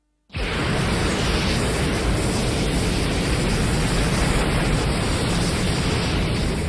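Godzilla atomic breath sound effect: a steady rushing hiss that starts suddenly a moment in and holds unchanged, with no roar in it.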